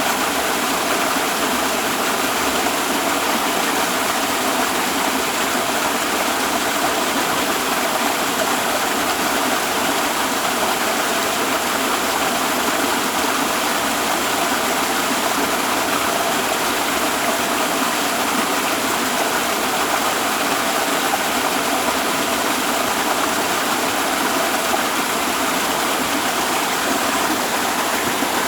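Waterfall: water falling and rushing in a loud, steady roar that does not change.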